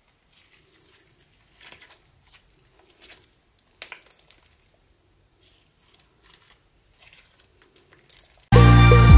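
Sticky slime being handled close up: faint, irregular sticky crackles and small pops. Near the end, loud background music with a beat cuts in.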